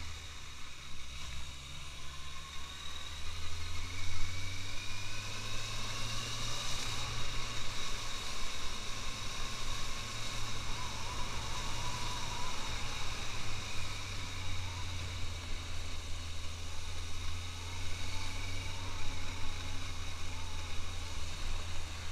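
Suzuki GSX650F's inline-four engine running while riding, rising in pitch as it accelerates a few seconds in, over a steady rush of wind noise on the microphone.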